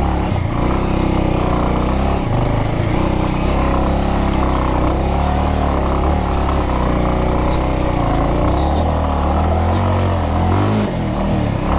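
Bajaj Avenger motorcycle's single-cylinder engine running under load on a steep, narrow dirt climb, the revs rising and falling.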